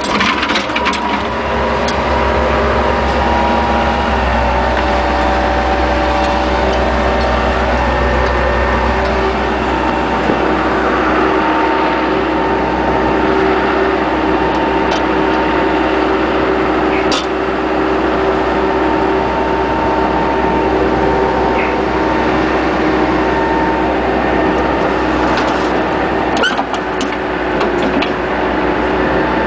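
Bobcat skid-steer loader's diesel engine running steadily under hydraulic load while working a 709 backhoe attachment digging broken asphalt out of a trench, its pitch shifting a little. A few short sharp knocks come near the start and in a cluster near the end.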